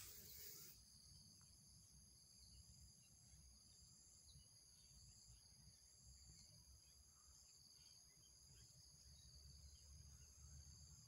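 Near silence with a faint, steady, high-pitched chorus of insects, several unbroken tones on top of one another, over a low rumble. A brief rustling noise at the start stops under a second in.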